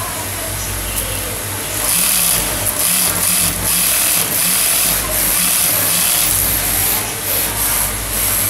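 High-post sewing machine stitching a lace wig cap on a metal head form, running in short runs from about two seconds in until about seven seconds, over a steady low hum.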